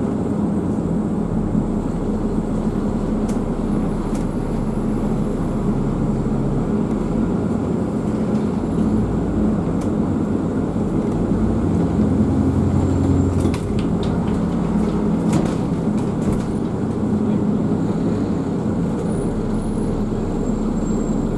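Double-decker bus engine and drivetrain running as the bus drives along, heard from inside the upper deck as a steady low hum that swells and eases with speed. A few sharp clicks sound about two-thirds of the way through.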